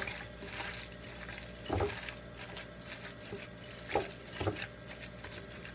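Gloved hands kneading a wet ground-turkey meatloaf mixture in a glass mixing bowl, with steady squishing and a few sharper squishes or knocks against the bowl, about two seconds in and twice around four seconds.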